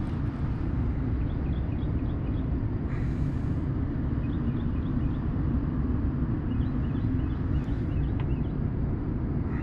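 A steady low rumble with no clear pitch, with faint short high chirps now and then.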